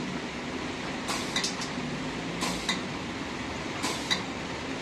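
Pneumatic dough divider cycling: each cut gives a short double clack, repeating about every second and a half (three times) over a steady machine hum, as portions of dough drop out.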